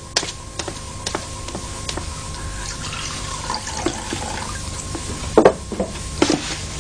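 Water running or pouring, with a few sharp knocks later on.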